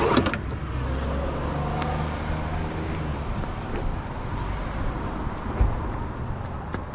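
Low, steady rumble of a motor vehicle, strongest in the first half and easing off, with a couple of clicks at the start.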